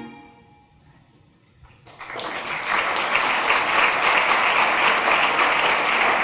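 Background music fading out, a moment of near silence, then an audience clapping steadily from about two seconds in.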